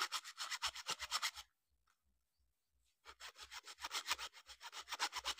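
Small hand saw blade cutting through the hard plastic body of a toy tractor in rapid back-and-forth strokes, about five a second. It stops about a second and a half in and starts again about three seconds in.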